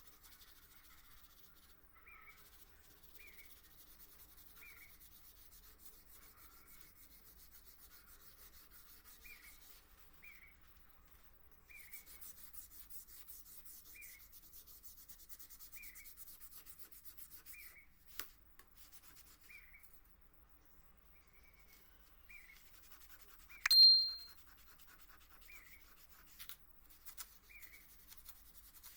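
Faint sanding of a steel knife blade, a soft rubbing hiss with short squeaks about once a second. A single bright metallic ding rings out late on.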